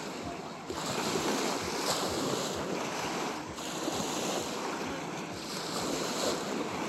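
Small waves washing onto a sandy shore: a steady hiss of surf that swells and eases, with wind on the microphone.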